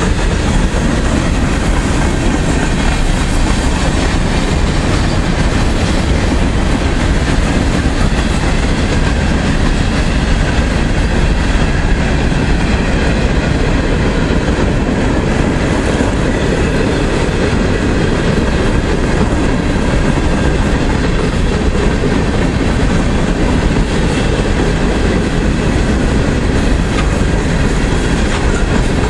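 Open hopper cars of a freight train rolling past close by: a steady, loud noise of steel wheels running on the rails.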